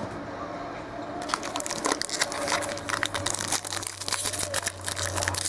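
Trading-card pack wrapper being torn open and crinkled by hand: a dense run of crackling and crinkling that starts about a second in.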